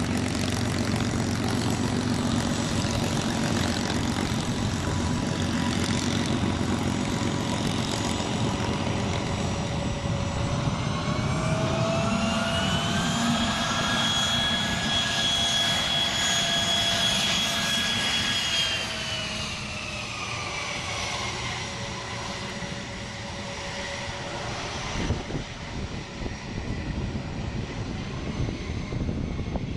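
P-51D Mustang's Packard Merlin V-12 engine running as the fighter taxis, a steady heavy drone. Over it a high whine rises in pitch about ten seconds in, holds, and falls back around twenty seconds in, where the overall sound also gets a little quieter.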